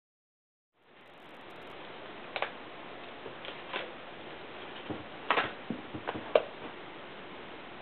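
Silent at first, then a steady hiss with a scattered run of light clicks and taps over about four seconds: hands on a MacBook pressing keys on its keyboard.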